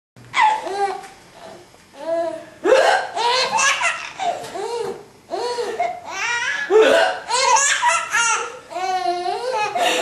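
A woman hiccuping, with a baby laughing in bursts in response to the hiccups, again and again.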